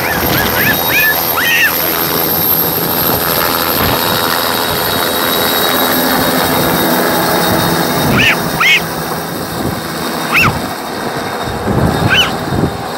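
Bell 206 JetRanger helicopter running nearby, its turboshaft engine giving a steady whine over the rotor noise. Several short rising-and-falling chirps sound over it, in the first two seconds and again in the second half.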